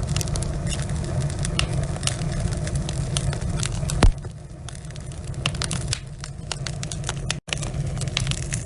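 Wood logs burning in a fireplace, with many small crackles and pops over a steady low rumble of the flames. One loud pop comes about four seconds in, after which the rumble quietens for a couple of seconds. The sound cuts out for a split second near the end.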